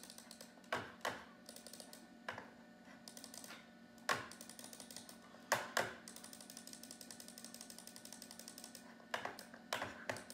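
Computer keyboard in use: irregular sharp key clicks with quieter rapid tapping in between, over a steady low hum.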